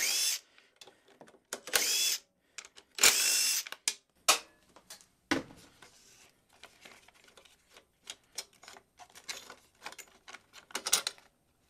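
Cordless impact driver spinning fasteners off a lawnmower engine's plastic air filter housing in three short bursts over the first four seconds. After that come faint clicks and rattles as the plastic housing and its parts are worked loose by hand.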